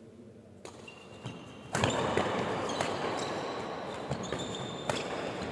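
Badminton rally in a large hall: about half a dozen sharp racket strikes on the shuttlecock spaced a second or so apart, with short high squeaks of shoes on the court. The background noise jumps up in level about two seconds in.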